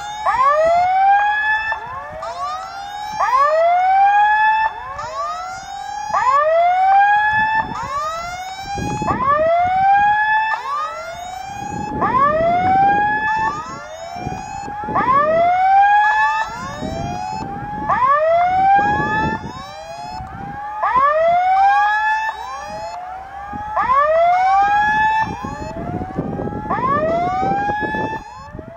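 Level-crossing warning signal sounding: a repeated electronic tone, about one note a second, each arching up and then falling in pitch. It signals that a train is approaching the crossing. Now and then a low rumble runs underneath.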